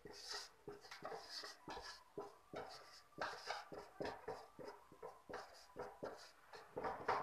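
Marker pen writing on a whiteboard: a quick run of short scratching strokes with small squeaks as the letters are drawn.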